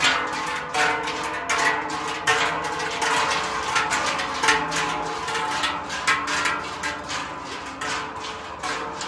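Several large Swiss sheet-metal cowbells (Treicheln) swung in step, clanging together in a steady rhythm of about one stroke every three-quarters of a second, their low tones ringing on between strokes.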